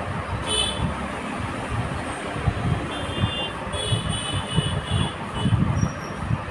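Handling noise of hands bundling wires inside a PC cabinet: irregular rustling and soft knocks, with several short high squeaks about half a second in and again between about three and five seconds in.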